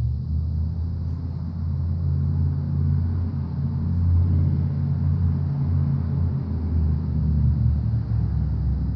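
Low, steady engine rumble of a motor vehicle running close by, swelling in at the start.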